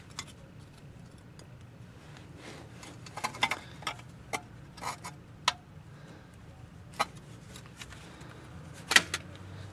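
Metal pick scraping and clicking against a steel cotter pin and castle nut on a Toyota Prius outer tie rod end as the pin is bent straight and worked out, in a string of sharp irregular clicks. A low steady hum runs underneath.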